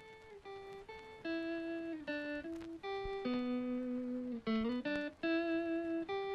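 Background music: a melody of held notes played one at a time, with a quick run of short notes about four and a half seconds in.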